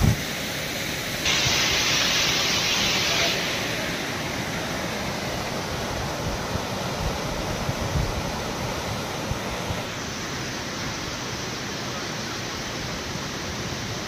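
Steady rushing of a waterfall, an even noisy hiss with no pitch; for about two seconds near the start it turns louder and brighter.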